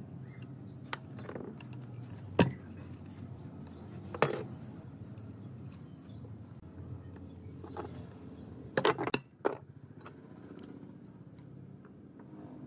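Sharp metallic clinks and knocks of steel parts or tools being handled, a single one about two seconds in, another about four seconds in, and a quick cluster of them about nine seconds in, over a steady low machine hum.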